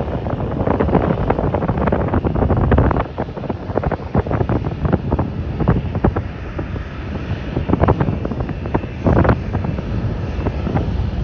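Wind buffeting the microphone in uneven gusts, over the low rumble of a Boeing 737-700's CFM56 jet engines at taxi power.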